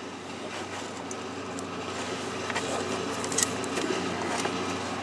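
Steady low hum, with a few light clicks and rustles from hands handling the wiring close to the microphone.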